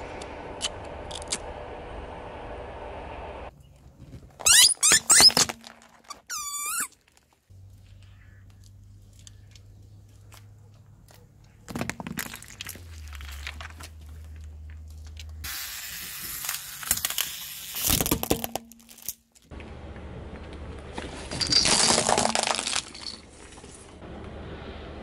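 A car tyre rolling slowly over small objects on asphalt, crushing mesh stress balls and other things in several separate sudden bursts of squeaks, squelches and crunches, with the car's engine running low in between.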